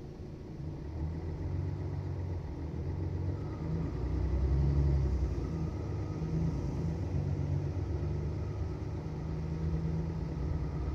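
Mercedes-Benz Citaro city bus engine running as a low rumble. It grows louder from about a second in, is loudest around four to five seconds in, then holds steady.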